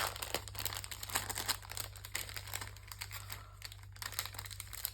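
A packet of die-cut shapes crinkling and rustling as it is handled, in irregular crackles with a sharp click at the start. A low steady hum runs underneath.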